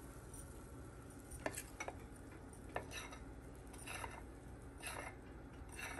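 A metal spoon clinking and scraping against a bowl of pancake batter: a few sharp clicks in the first half, then four short scrapes about a second apart.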